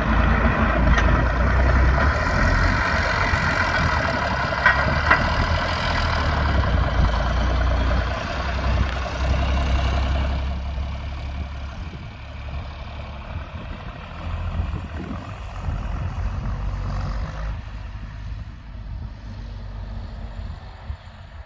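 Engine of an old tractor with a backhoe attachment running as it drives away. It grows fainter after about ten seconds as the tractor moves off into the distance.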